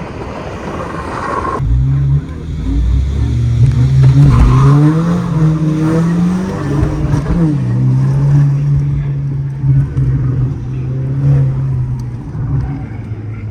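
Car engine under hard acceleration. Its pitch climbs, drops at a gear change, then holds steady at speed.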